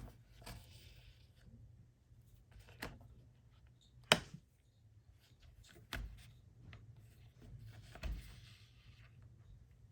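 Hand-stitching leather with braided polyester thread: a soft rasp as the thread is drawn through, heard twice, among scattered small clicks and knocks of needles and tools. The sharpest click comes about four seconds in.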